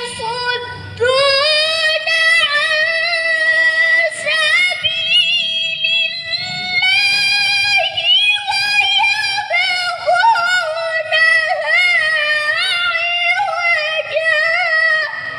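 A woman reciting the Quran in melodic tajwid style (tilawah) in a high voice: one long phrase held on a single breath, full of quick ornamented turns and wavering pitch.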